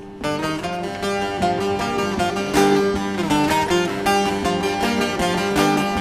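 Bağlama (long-necked Turkish saz) played with a plectrum: a quick run of picked melody notes over steadily ringing lower notes, a fresh phrase starting just after the beginning.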